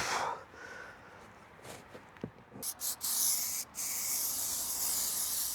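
Aerosol can of spray adhesive hissing: a few short bursts about two and a half seconds in, then one steady spray of about two seconds.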